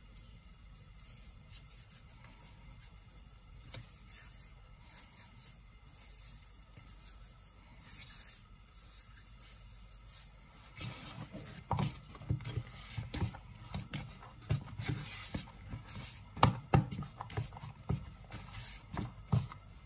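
Hands rubbing dry flour and dough crumbs off the fingers, a faint rustle. About halfway through, hands start kneading wheat dough in a bowl, giving irregular soft thuds and squelches.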